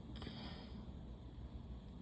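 A short sniff through the nose about a quarter of a second in, over a faint, steady low rumble.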